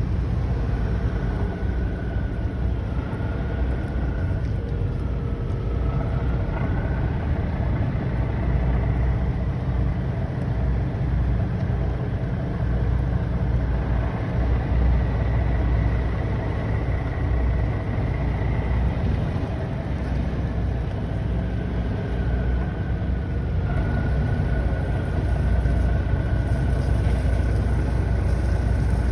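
Engine running steadily at idle: a continuous low rumble, with a faint high whine that wavers slightly in pitch.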